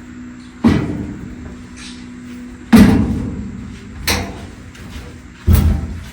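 Four sharp knocks that ring out briefly, the second the loudest, as a clothes dryer is being taken apart, over a faint steady hum.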